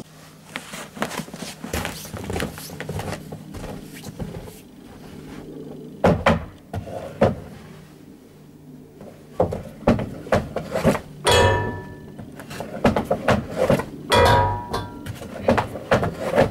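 Ice hockey stick shooting pucks, a run of sharp cracks. Several shots ring out with a short metallic clang as the puck strikes the steel crossbar of the hockey goal.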